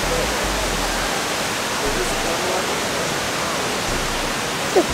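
Steady rushing hiss of falling water from an indoor atrium waterfall.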